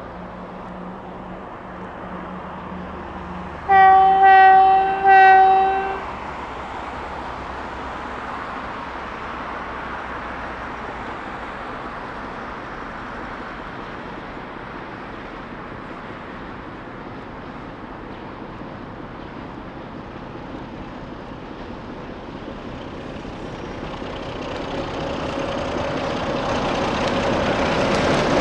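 Grup Feroviar Roman diesel locomotive DA 1546 sounds its horn in two loud blasts about four seconds in. Its engine then grows steadily louder as it approaches, hauling a long train of empty freight wagons uphill.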